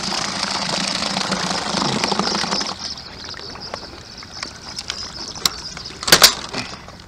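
Electric trolling motor running steadily on an inflatable raft, with a low hum and hiss; the level drops about three seconds in. A few light clicks follow, then a sharp double knock about six seconds in.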